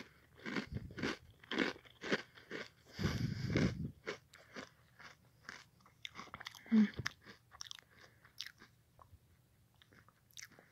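Cereal being chewed close to the microphone: a quick run of crunches, about two a second, then slower, scattered crunches with one louder bite about seven seconds in.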